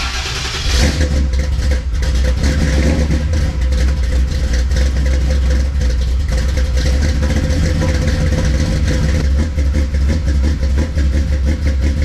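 Small-block Chevy V8 in a Chevrolet C10 pickup running loud through its Flowmaster mufflers. The sound steps up about a second in, then holds steady.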